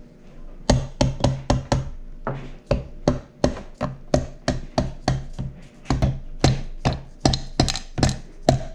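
A hammer or mallet striking a small two-stroke engine's side case over and over, about three sharp knocks a second, to tap the cover loose from its gasket.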